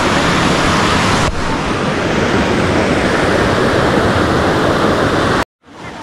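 Loud, steady rushing of a river's water pouring over the rock ledges of the Remakri Falls rapids. The sound cuts out for a moment near the end.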